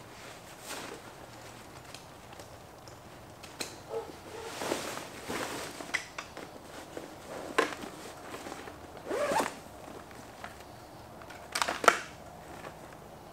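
A riding jacket being zipped up, in several short rasping pulls, one of them rising in pitch near the end of the zip, with rustling of the jacket and gloves between. A couple of sharp clicks come near the end.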